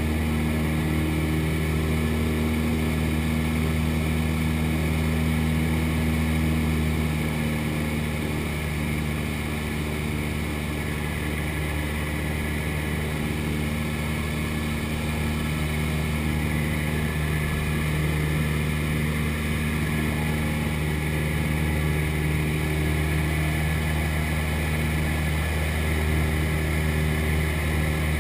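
Cessna 172's piston engine and propeller droning steadily, heard from inside the cabin; it eases slightly for a few seconds about eight seconds in, then comes back up.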